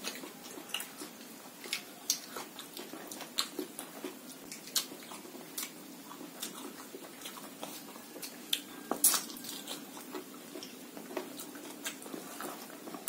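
Close-up eating sounds of people chewing food eaten by hand, with irregular small wet clicks and crunches.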